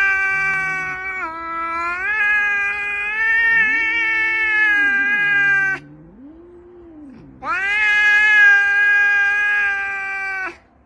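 Scottish Fold cat yowling in two long, drawn-out calls. The first dips in pitch and climbs back partway through, and the second begins about seven and a half seconds in. A quieter, lower wavering sound fills the pause between them.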